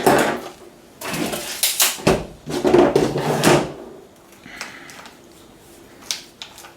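Sections of a TELESKOPIC AL-series telescopic pole being slid closed: a knock at the start, then two longer sliding rushes of tube against tube and clamp, followed by a few light clicks.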